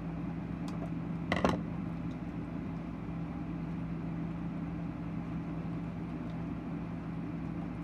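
A single short, sharp snip of scissors cutting a tag off a plastic toy medal, about a second and a half in, over a steady low hum.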